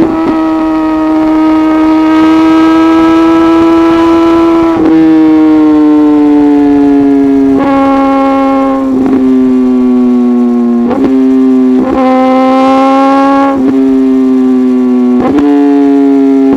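Suzuki GSX-R1000R's inline-four engine running at steady high revs through an M4 full-system exhaust, its pitch easing down slowly over the stretch. Short sharp cracks come every second or two.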